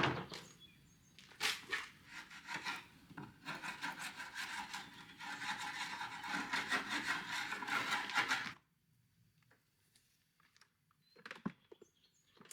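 A hand tool working wood in rapid back-and-forth rubbing strokes for about five seconds, then stopping abruptly. A knock and a few separate scrapes come first, and there are a couple of light clicks near the end.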